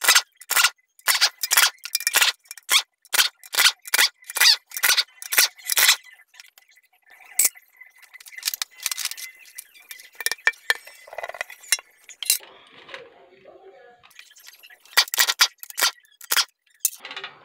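Metal tools clinking and knocking against the steel oil pan of a Toyota CVT transmission as it is worked loose and lifted off. Sharp clinks come two or three a second for the first six seconds, then scattered lighter clicks follow, with another quick run of clinks near the end.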